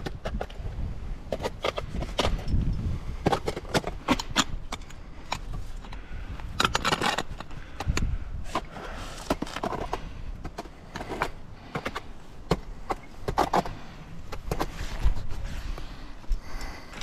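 Climbing hardware clinking and scraping against granite as a climber moves up the rock: irregular clicks and scrapes, several to a second at times.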